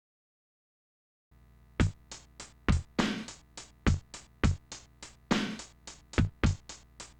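Sampled drum beat from the Dynamic Drums program on a Commodore Amiga 500, with kick, snare and hi-hat in a steady pattern. It starts about a second in, after dead silence.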